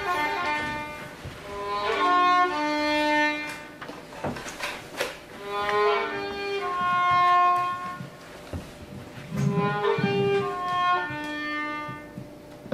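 Violin playing a slow melody of held notes in short phrases, stepping between pitches.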